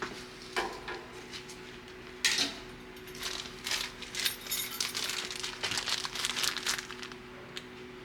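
Light metallic clinks and rattling of small metal parts and tools being handled, over a steady low hum; two sharper clinks come first, then a few seconds of dense rattling.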